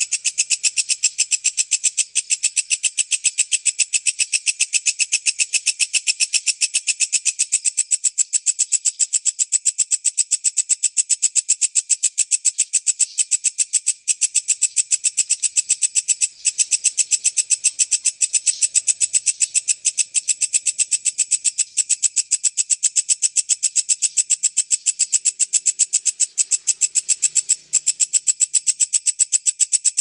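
High-pitched, fast and evenly pulsed chirring that runs without a break, from a looped bird-training recording of tengkek buto and walang kecek calls.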